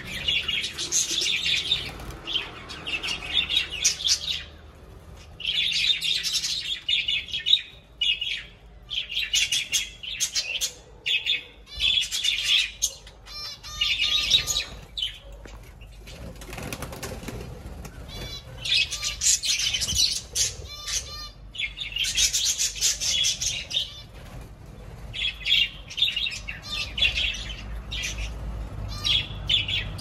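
A flock of budgerigars chattering in bursts of rapid, high chirps, with bouts of wing flapping among them. The chatter eases for a few seconds about halfway through, then picks up again.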